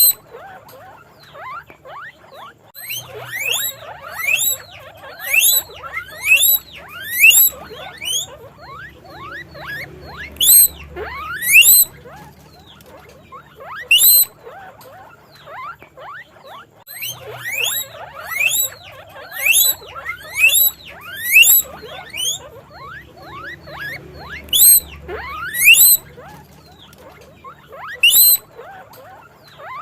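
Guinea pig wheeking: short, high-pitched squeaks that sweep upward in pitch, repeated in runs of several calls, with the loudest ones spaced about a second apart.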